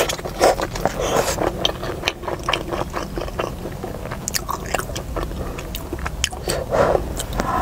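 A person chewing a mouthful of spicy stir-fried mian feizi: wet mouth noises and irregular smacking clicks.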